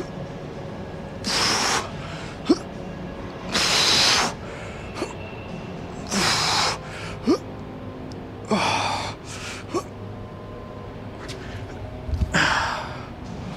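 A person breathing out hard in a steady rhythm, one forceful exhale about every two to three seconds, as during weightlifting reps, with a few short sharp clicks between the breaths.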